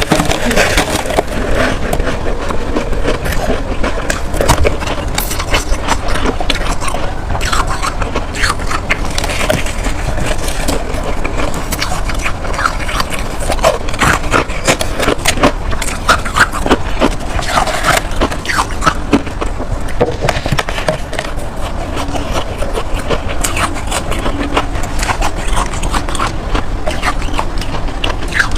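Freezer frost being scraped and crunched, a dense, continuous run of crisp crackling scrapes.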